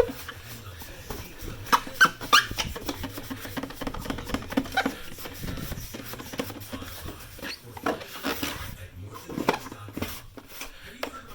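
Polishing compound being rubbed by hand over a plastic headlight lens, an irregular scrubbing rub with a few sharper scuffs, as the pitted, foggy lens is polished clear.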